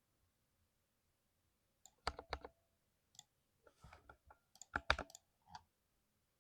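Keys of a 60% mechanical keyboard clicking in a few short, irregular clusters, starting about two seconds in after a quiet stretch, with the loudest strokes near the end.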